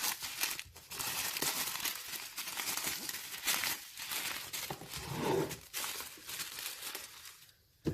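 Packaging crinkling and rustling as the slime kit's contents are handled and pulled out, stopping shortly before the end.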